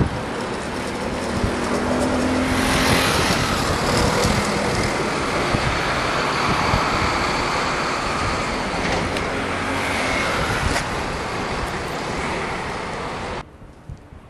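Steady street traffic noise, a constant wash of passing vehicles, growing louder a couple of seconds in and cutting off abruptly near the end.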